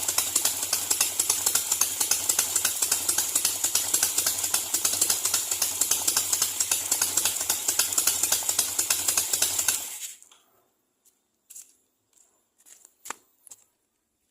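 Car engine in a chopper motorcycle idling with a rapid, even, lumpy beat, set up to sound like a Harley-Davidson. It cuts off suddenly about ten seconds in, followed by a few faint clicks.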